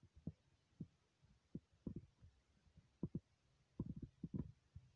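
An echidna lapping beaten egg yolk off a plate with its long tongue, making faint, soft, wet clicking and smacking sounds at an irregular pace, with a quick run of them near the end.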